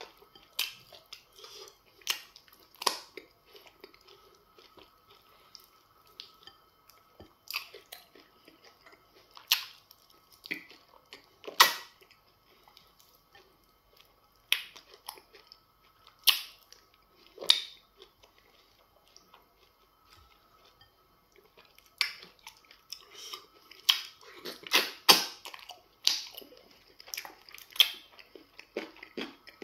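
Close-miked wet eating sounds of semo fufu with okra soup being eaten by hand: chewing and lip smacks come as separate sharp smacks with quiet gaps between them, and grow dense and busy in the last several seconds. A faint steady hum runs underneath.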